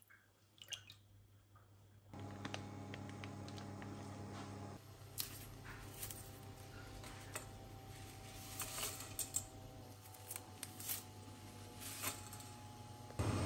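A few small drips and clicks at first, then a steady electric hum comes on about two seconds in and shifts in tone a couple of times. Over it come light rustles and clicks as a bundle of dry udon noodles is unwrapped and dropped into a stainless steel steamer pan.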